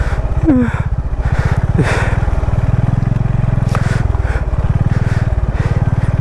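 Motorcycle engine running steadily while riding, with a rapid, low, even exhaust beat.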